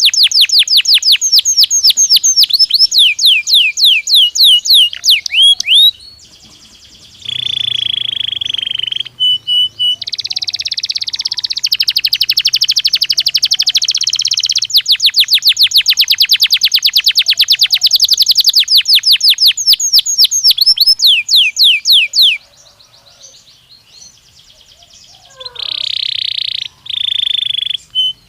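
Domestic canary singing a long, loud song: rapid trills of quickly repeated falling whistles, a held buzzy note and a rolling trill, then after a short pause two long steady notes near the end.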